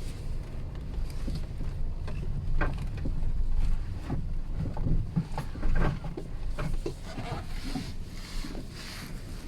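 Low rumble of a Geely Coolray driving over a rough road, heard inside the cabin, with a run of irregular knocks from the left side, loudest around the middle. The owner takes the knocking for the left door not sitting tightly in its latch and rattling as the body rolls over bumps.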